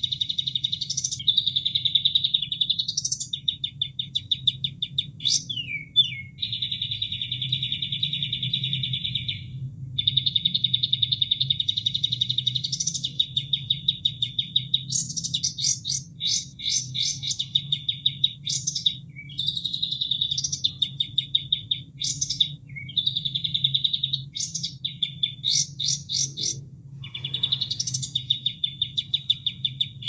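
Kapas tembak songbird singing: long, fast buzzing trills broken by quick rising sweeps and rapid runs of sharp chips, over and over, with a faint low steady hum beneath.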